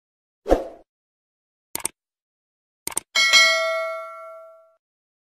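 Subscribe-button animation sound effects: a short thud, then two quick double clicks like a mouse clicking, then a notification-bell ding that rings out and fades over about a second and a half.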